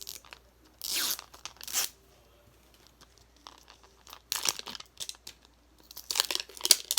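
Plastic toy packaging being crinkled and torn open by hand, in several short crackly bursts.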